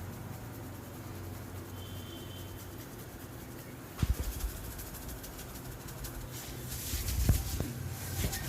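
Hands working through an oil massage: a cluster of sharp slaps or knocks about halfway through, then rubbing and further pats near the end, over a steady low hum.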